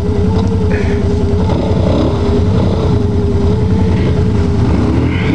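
ATV engine running steadily under load as the quad churns through deep mud, with a steady whine riding over the rapid low rumble.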